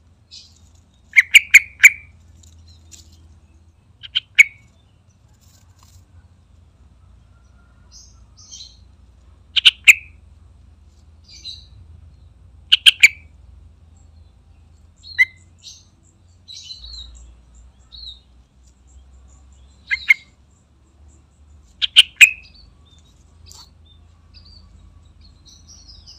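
Yellow-vented bulbul (trucukan) calling in short, loud bursts of sharp chattering notes every few seconds, with fainter high chirps in between.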